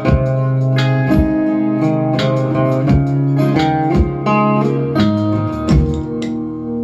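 Acoustic guitar fingerpicked, single plucked notes over ringing lower strings. About six seconds in the picking stops and the last notes are left to ring out.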